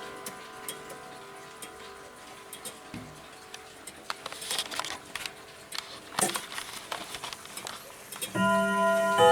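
Ridgeway triple-chime grandfather clock: faint scattered clicks and the fading ring of earlier chime notes, then about eight seconds in the chime starts to play, several ringing notes at once, much louder.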